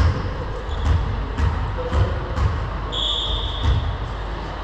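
A ball bouncing on a hardwood gym floor, thudding six times at uneven intervals, and a short referee's whistle about three seconds in, the signal to serve.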